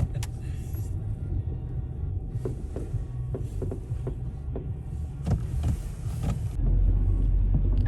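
Steady low rumble of a car driving, heard from inside the cabin, with a few faint ticks; the rumble grows louder near the end.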